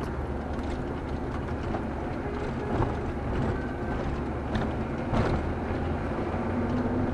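Car engine and road noise heard from inside the cabin while driving, with the engine note rising near the end. A couple of brief knocks, about three and five seconds in.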